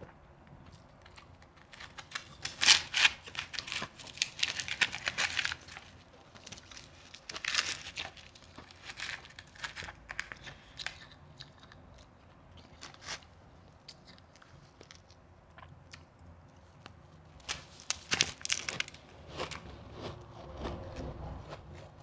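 Shaved ice crunching and crackling as hands scoop and squeeze it in a foil pan, in several bursts of a few seconds each.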